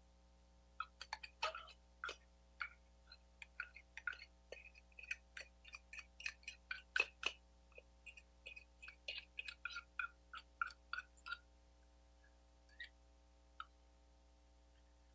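A quick, irregular series of small clicks and taps, some with a light ringing, lasting about ten seconds, then two lone clicks near the end.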